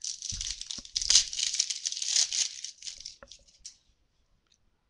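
Foil trading-card pack wrapper being torn open and crinkled for about three seconds, followed by a few light clicks of cards being handled before it goes quiet.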